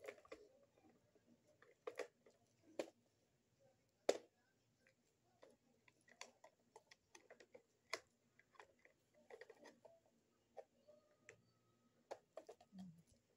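White plastic toothbrush organizer parts clicking and knocking as they are handled and fitted together, in short irregular taps with a sharper knock about four seconds in.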